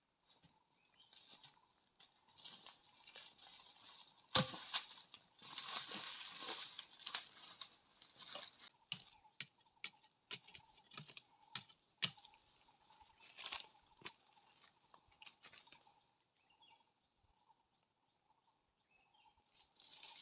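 Footsteps and movement through dry leaf litter and twigs, crunching and rustling with sharp crackles and snaps; the loudest is a single crack about four seconds in. The crunching thins out and stops for the last few seconds.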